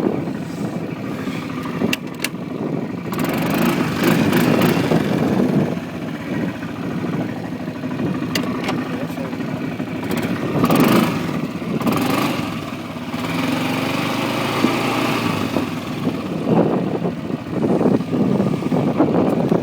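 Kawasaki Prairie 400 ATV's single-cylinder four-stroke engine running while riding, its pitch rising and falling with the throttle. Several bursts of rushing noise come over it.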